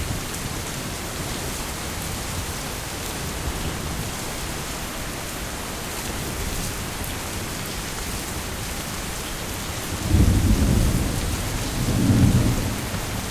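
Steady heavy rain, with thunder rumbling twice near the end, the second roll close behind the first.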